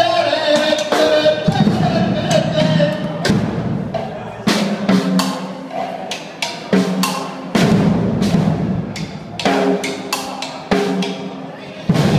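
Drum kit played live: frequent, irregular hits on the drums and cymbals, over a low pitched tone that comes and goes in short stretches.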